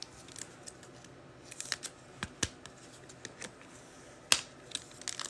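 Football trading cards being handled by hand: a scattering of light clicks and snaps as cards are flipped and set down, the sharpest a little after four seconds in.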